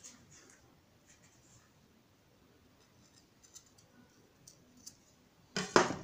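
Tools handled on a wooden worktable: light clicks and scrapes, then a louder clatter near the end as a tool is set down on the table.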